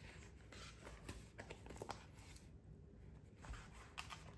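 Faint rustling and a few light taps from the paper pages of a softcover sketchbook as they are handled and folded back.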